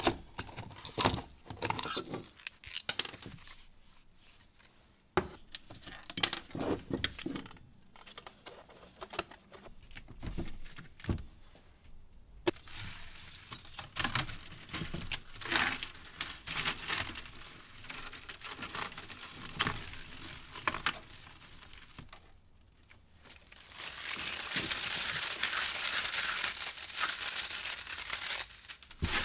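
Coiled heating wire of a glass-top range's radiant element being pried and torn out of its crumbly insulation bed: scattered clicks and scrapes at first, then denser crackling and scratching, most continuous near the end.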